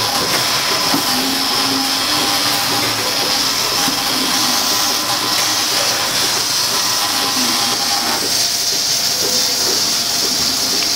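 Lely milking robot running with its teat cups on a cow's udder: a steady, loud hiss from the milking machine.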